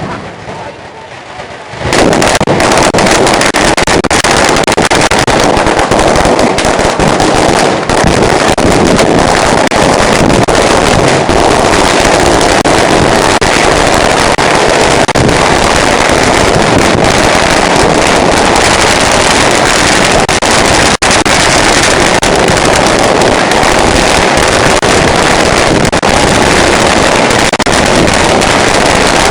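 Fireworks and firecrackers going off in a dense, continuous crackle. It starts suddenly about two seconds in and stays very loud.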